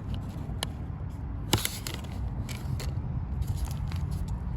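A few short clicks and scrapes over a steady low rumble, the sharpest click about a second and a half in.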